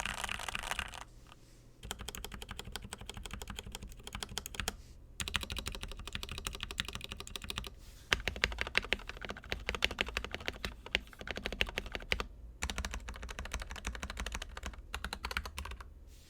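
Fast typing on a mechanical keyboard fitted with stock, unlubricated Gateron Yellow linear switches: dense runs of keystrokes with short pauses between bursts. The switches sound tinny and hollow.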